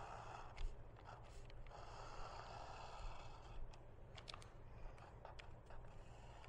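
Pencil scratching faintly over graphite tracing paper as it traces lines, in strokes of about a second with small ticks between, over the steady low hum of an overhead fan.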